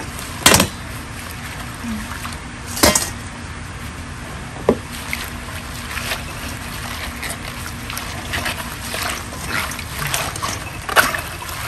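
Wet sương sâm leaves being squeezed and kneaded by hand in a stainless steel bowl of water, a run of small wet crackles and sloshes through the second half. Two sharp knocks near the start, as a plastic colander is set into a steel basin.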